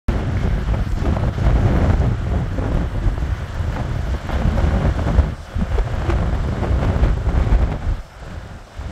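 Strong wind buffeting the microphone, a low rumble that comes and goes in gusts and eases briefly about five seconds in and again near the end. Under it, a rough sea washes against the rocks.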